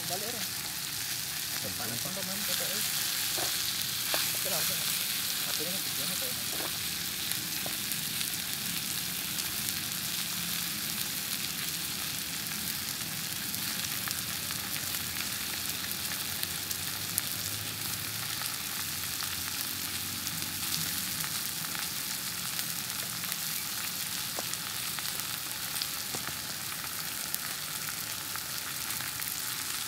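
A pepper-and-herb-crusted beef steak searing in a non-stick frying pan with whole garlic cloves, sizzling steadily.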